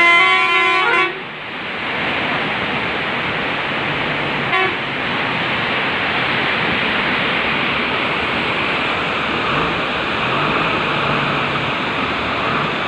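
Melamchi River in full muddy flood, rushing water making a loud, steady roar. A horn sounds for about a second at the start and gives one short toot about four and a half seconds in.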